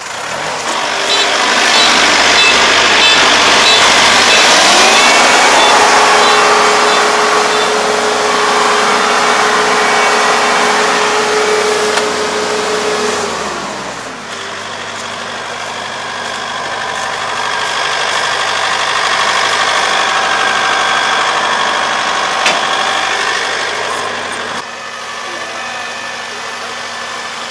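Four-row rice combine harvester running while harvesting, its diesel engine and cutting and threshing machinery making a loud steady drone. About halfway through the pitch drops and the sound becomes quieter and steadier.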